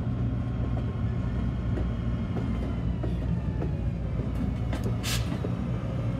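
Diesel locomotive engine running with a steady low drone as it rolls slowly past, with scattered clicks from the wheels on the rails. About five seconds in comes a short hiss of air.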